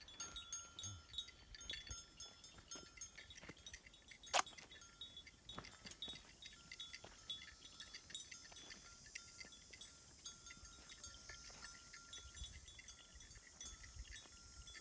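Quiet field ambience of faint chime-like ringing tones and light clicks, with one sharp click about four seconds in and a high hiss that swells in the second half.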